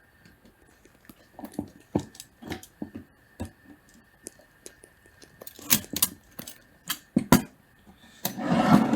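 Scattered metallic clicks and knocks from an antique Corona portable typewriter being handled and turned over, with a rustling scrape near the end.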